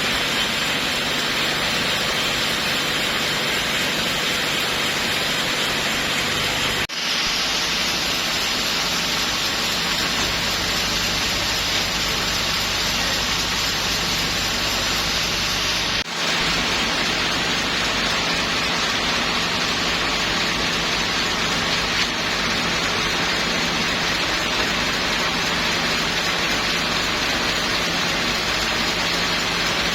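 Sawmill saw running steadily through teak, a continuous loud hiss of cutting over a low machine hum, breaking off briefly about 7 and 16 seconds in.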